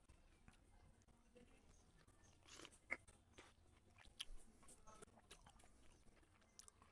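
Near silence broken by a few faint, soft wet clicks from fingers squeezing and mixing rice into fish curry on a plate. The sharpest click comes about three seconds in.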